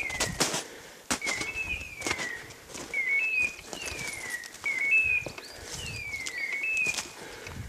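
Hunting dog's beeper collar sounding its point signal: a falling electronic tone followed by a short stepped tone, repeating about once a second, which tells the handler the setter is on point. Footsteps and knocks on rock and brush sound underneath.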